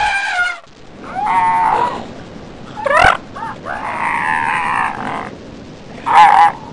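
Elephant trumpeting: a series of about five short, pitched, brassy calls with quieter gaps between them.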